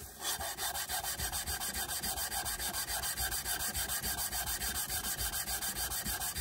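A steel part of a Record 18-inch pipe wrench rubbed back and forth on abrasive paper over a flat surface: flat-sanding one of its faces by hand. Fast, even scraping strokes, several a second.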